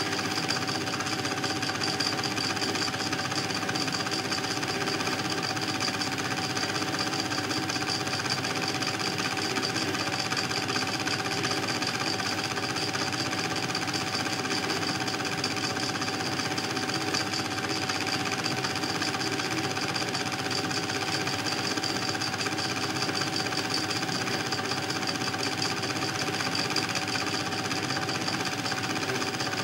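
Cine film projector running: a steady, fast mechanical clatter with a constant motor whine, unchanged throughout.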